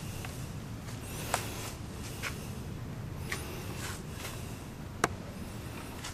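Handling noise from a handheld camera moving around inside a car: a steady low rumble with four light, sharp clicks and some faint rustling.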